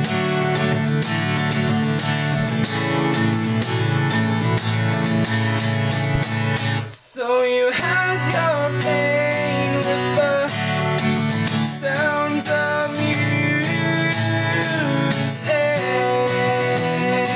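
Acoustic guitar strummed steadily, stopping dead for a moment about seven seconds in, then resuming; a young male voice sings over it after the break.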